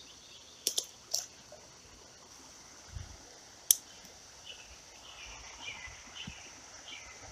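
Quiet creekside ambience with a steady high hiss, broken by a few sharp clicks as a micro spinning reel and ultralight rod are handled and cast, the loudest a little before the four-second mark. A run of short, high, falling chirps follows in the second half.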